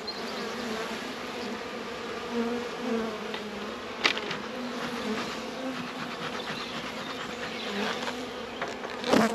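Honeybees buzzing over an opened hive, a steady hum that wavers slightly in pitch. A few sharp clicks stand out, one about four seconds in and a louder one near the end, as a hive tool prises at the wooden frames.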